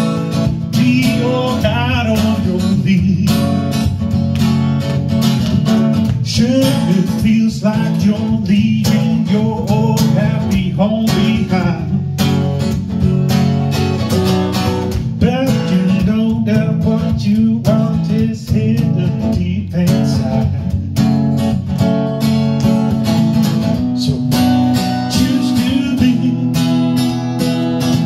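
Steel-string acoustic guitar strummed steadily as accompaniment to a song, played live.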